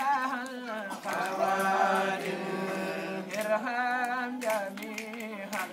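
Chanted singing: long held notes with a wavering pitch, sung in phrases separated by short breaks.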